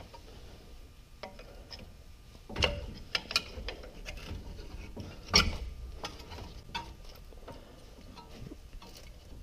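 Brake caliper being pried up off the front rotor of a 2000 Toyota Tacoma: scattered metal clicks and scrapes, with two louder clunks about two and a half and five and a half seconds in.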